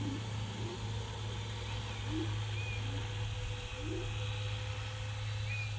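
A steady low hum with short bird chirps and a few brief, low, rising calls over it.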